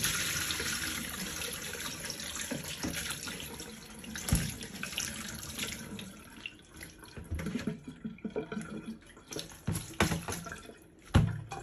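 Ice water poured from a bowl into a plastic colander in a sink, the splash and drain loudest at first and tapering off over about four seconds. Then quieter rustling and dripping as blanched bok choy is handled in the colander, with two dull knocks, one about four seconds in and one near the end.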